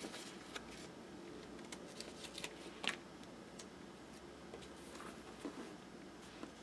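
Quiet paper handling: a sticker sheet rustling and a paper sticker being pressed onto a notebook page, with scattered light clicks and one sharper crackle about three seconds in.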